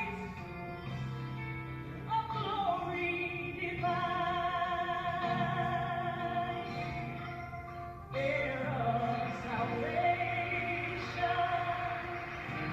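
Slow song: a singing voice holding long notes with vibrato over a sustained low accompaniment.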